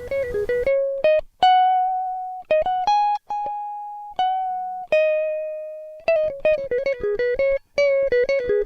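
Background music: a solo guitar plucking a slow melody, single notes ringing out and fading, with quicker runs of notes in the second half.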